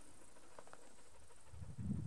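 Faint steady high buzz of insects in open grassland, with a few low muffled thumps near the end. No rifle shot is heard.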